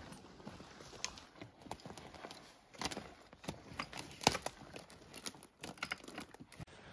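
Footsteps of a person hiking over rough ground: irregular steps and scuffs, with a few sharper knocks about three and four seconds in.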